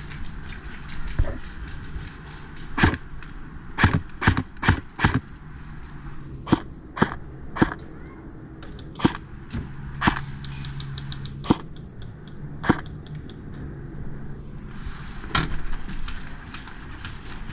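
Airsoft guns firing during a skirmish: a series of sharp single shots, some coming in quick runs about half a second apart, with faint rapid bursts of more distant fire in between.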